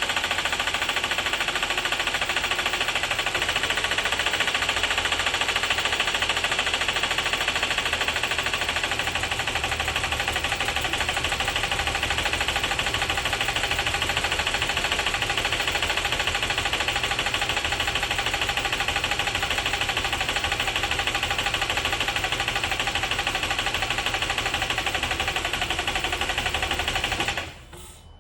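2012 Buick Enclave's 3.6-litre V6 running with a rapid, steady knock, the sign of internal damage after the engine was flooded with water. It shuts off near the end.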